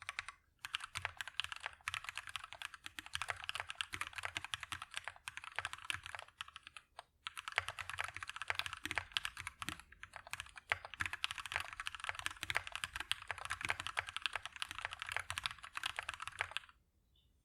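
Fast typing on a KBDFans Maja mechanical keyboard with a brass plate, lubed and filmed Durock Lavender switches and Akko ASA profile PBT keycaps: a dense run of keystrokes with a brief pause about seven seconds in. The typing stops about a second before the end.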